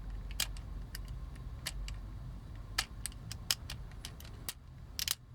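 Irregular sharp clicks and light taps of small plastic toy parts being handled and worked apart, over a faint low hum.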